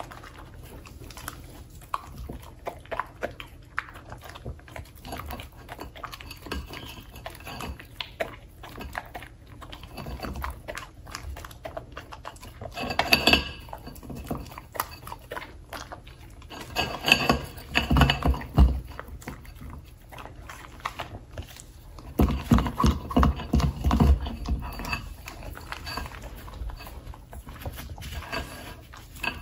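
Samoyed licking and eating berries off a ceramic plate: wet licking and chewing, with the tongue and teeth clicking and knocking against the plate, in louder spells around the middle and again about two-thirds through.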